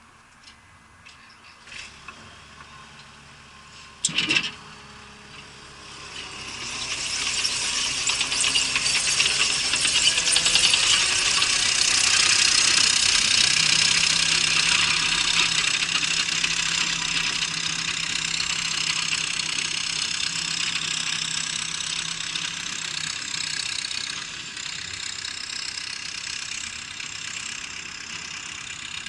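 Mustang MTL25 compact track loader starting and running. A few light clicks and a sharp knock come about four seconds in; from about six seconds a steady running sound builds up and holds, easing somewhat near the end.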